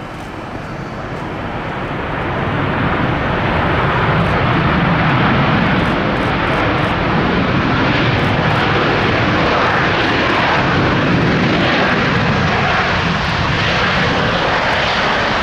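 Jet airliner's engines passing, growing louder over the first few seconds and then holding a steady, loud rushing noise.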